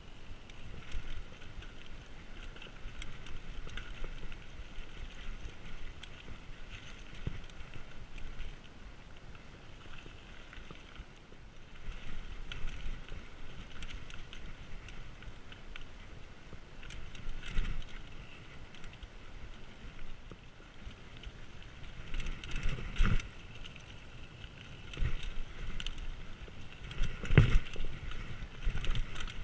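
Mountain bike riding down dirt singletrack: tyres rolling over dirt and leaves, the bike rattling, with sharper knocks over bumps that come harder and more often in the second half.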